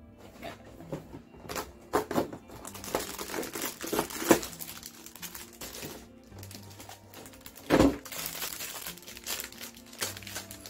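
Cardboard Lego Star Wars advent calendar box being handled and opened, with irregular bursts of crinkling and rustling from the box and the plastic bag of Lego pieces inside. A single heavy thump comes nearly eight seconds in.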